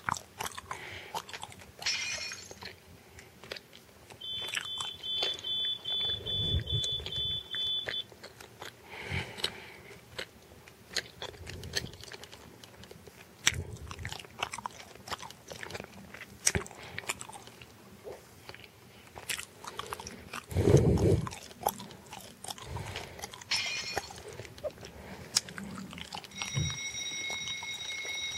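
Electronic fire-alarm sounds played by a fire-alarm app through a Kyocera Milano phone's speaker. About four seconds in, a high alarm tone sounds for about four seconds. Near the end a steady, multi-tone alarm starts and keeps going, with taps and knocks from the phone being handled in between.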